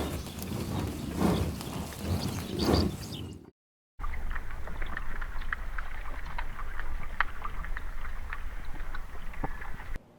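A big cat roaring and growling in repeated swells, cut off about three and a half seconds in. After a brief silence comes a steady low rumble with scattered sharp clicks and knocks.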